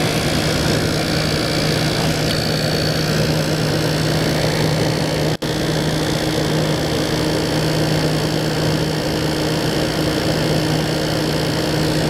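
A 1989 Crest Carry Cool window air conditioner running, heard at its outside grille: a steady compressor hum under the rush of the condenser fan. The sound drops out for an instant about five seconds in.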